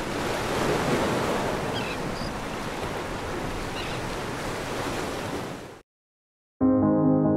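Surf washing onto a sandy beach, a steady rush of waves that cuts off abruptly near the end. Soft piano music starts just after.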